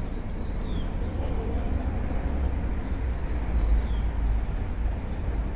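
Low, fluctuating rumble of wind buffeting the microphone, with two faint short falling chirps high above it, about a second in and near four seconds in.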